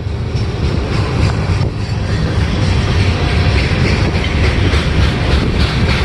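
Freight train of flatcars, a tank car and covered hoppers rolling past close by: steel wheels rumbling steadily on the rails with a clickety-clack over the rail joints.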